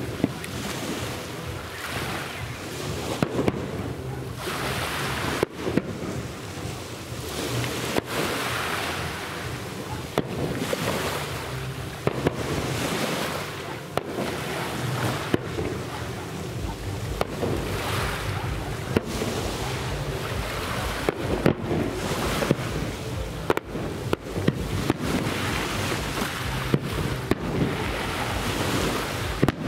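Fireworks shells bursting overhead, a sharp bang every second or two, over a steady rushing noise that swells and fades.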